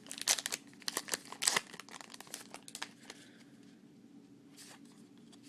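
Wrapper of a baseball card pack crinkling and tearing as it is ripped open by hand. The crackling is dense for the first few seconds, then thins to a few faint rustles.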